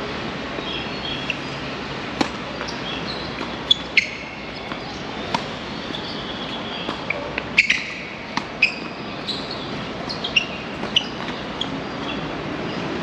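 Tennis ball being struck and bouncing: sharp pops at irregular intervals, some in quick pairs. Short high bird chirps sound between them.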